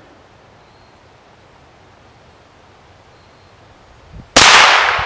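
A single shot from a .22 LR rifle with a homemade rebar barrel, firing a CCI Stinger hypervelocity round. It comes about four seconds in as a sudden loud crack that rings out and echoes away over a second or so. Before it there is only faint outdoor background.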